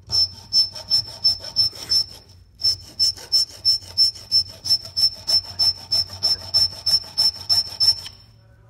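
Hand file stroking back and forth across the tip of a steel flathead screwdriver clamped in a vise, about three strokes a second, each with a high ring; reshaping the blade tip. The strokes pause briefly about two seconds in and stop shortly before the end.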